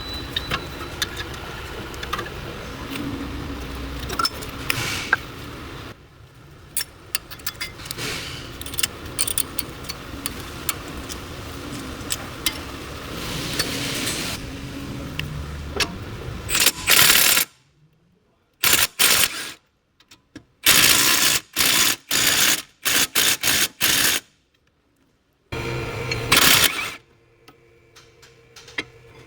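Metal clinks, clicks and knocks of hand tools and brake parts during front brake work. About two-thirds of the way through comes a run of short, loud, noisy blasts with sudden dead silence between them.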